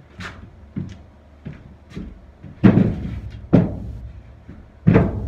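Timber battens being handled inside a steel narrowboat shell: a run of irregular hollow knocks and thuds, the loudest about two and a half seconds in and another near the end.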